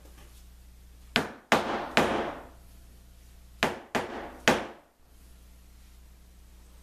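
Rubber mallet striking the clamped laminated plywood ring during its glue-up, six blows in two quick sets of three.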